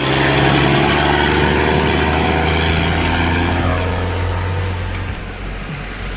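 A large road vehicle passing close by, its engine drone steady at first, then dipping slightly in pitch and fading about five seconds in.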